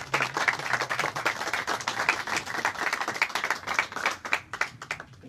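A small group clapping hands in applause for a few seconds, dying away just before the end.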